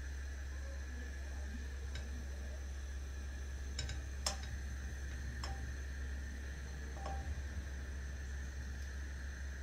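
A few light clicks and taps of a wooden-handled spatula against a coated saucepan and small ingredient bowls while stirring, the sharpest about four seconds in, over a steady low hum.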